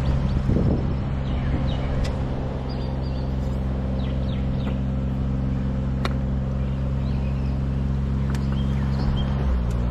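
An engine running steadily at low speed, its pitch stepping down slightly near the end, with faint bird chirps.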